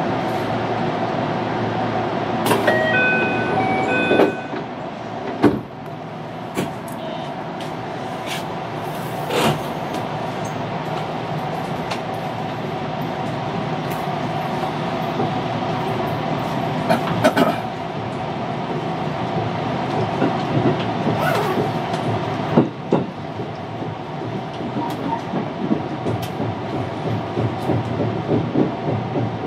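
Running noise inside an electric commuter train car: the steady drone of the motors and wheels with scattered sharp clicks and knocks, and a short run of electronic beeps about three seconds in. Near the end a regular clickety-clack of wheels over rail joints comes in, about two beats a second.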